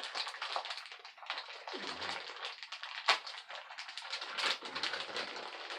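Rapid small clicks, taps and rustles of pipe and plumbing fittings being handled, with one sharper snap about three seconds in.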